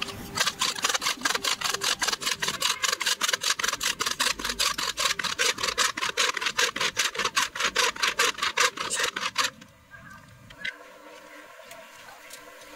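Wooden bow drill being worked with quick back-and-forth strokes of the bow, its thin steel bit cutting into a block of wood. It makes a fast, even scraping rattle of about five strokes a second, which stops about nine and a half seconds in.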